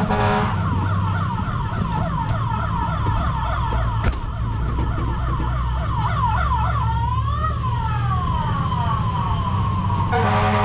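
Fire engine's siren on a fast yelp that switches about seven seconds in to a slow wail, rising and then falling, over the truck's steady engine rumble. A horn blast sounds at the start and another near the end.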